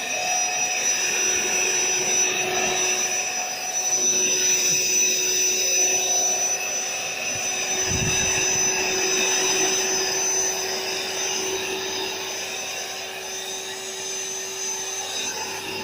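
Built-in electric air pump of an AeroBed raised air mattress running steadily, blowing air in as the mattress nears full. It has a whirring hum with a few held tones that eases off slightly in the second half, and a brief low thud about halfway through.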